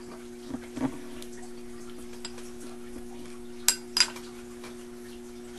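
A spoon clinks twice against a glass cup, sharp and high, about three and a half seconds in, over a steady low electrical hum, with a few fainter ticks earlier on.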